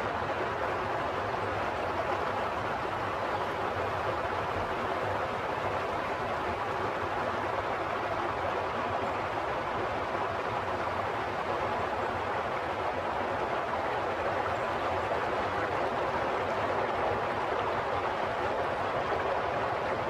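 Running water: a steady, unbroken rush with no separate splashes or drops.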